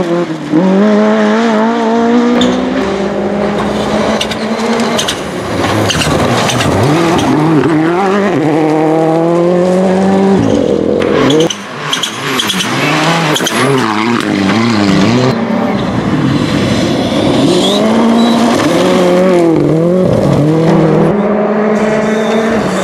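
Rally car engines at full throttle on a gravel stage, the engine note climbing through each gear and dropping at every change. About eleven and a half seconds in, the sound cuts to another car doing the same.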